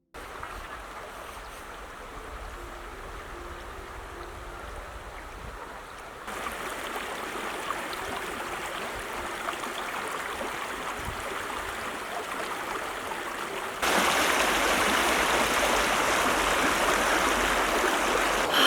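Small stream running over its bed, a steady rushing and splashing of water that gets suddenly louder about six seconds in and again near fourteen seconds.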